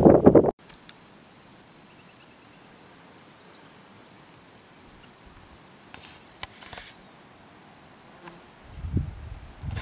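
Wind buffeting the microphone, cut off abruptly about half a second in, then a quiet stretch with faint buzzing of insects. Gusts of wind on the microphone come back near the end.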